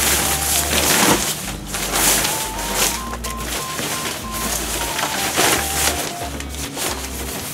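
A 420D oxford-fabric bicycle cover rustling and crinkling in irregular bursts as it is pulled down over a bicycle. Background music with a simple stepped melody and a steady bass plays underneath.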